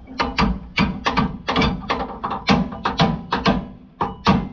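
Background music with a percussive beat of sharp knocks over steady tones.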